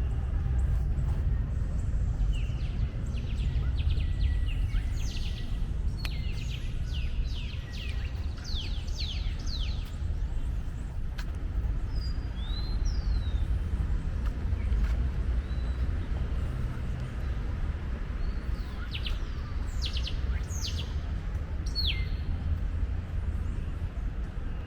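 Small birds chirping in quick runs of short downward-sweeping notes, in two spells, over a steady low background rumble.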